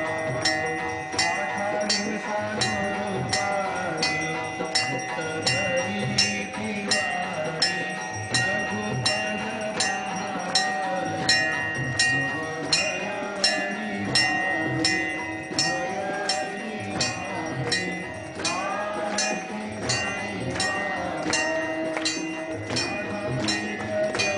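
Devotional music with a steady beat of about two sharp strikes a second, over held ringing tones.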